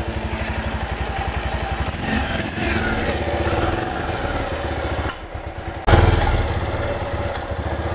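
Carburetted motorcycle engine idling unevenly, with its carburettor coughing. The engine sags for a moment about five seconds in, then comes back with a sudden loud burst. The roughness can come from valve clearance set too tight.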